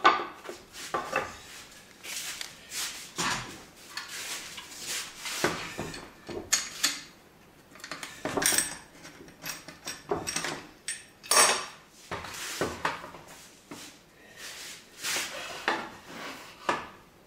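Irregular knocks and clatter of a wooden batten and a biscuit joiner being handled and set down on a wooden door panel on the workbench, while the joiner is lined up for cutting biscuit slots; the joiner's motor is not running.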